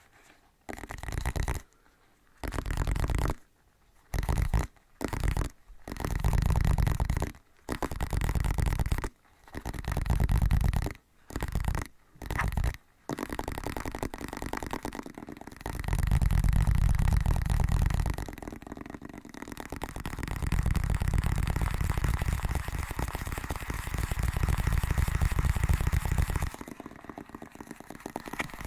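Close-miked ASMR rubbing and brushing sounds with a heavy low rumble, as of something rubbed right against the microphone. They come first as a run of short bursts about a second long with brief silent gaps, then from about halfway as longer unbroken rubbing.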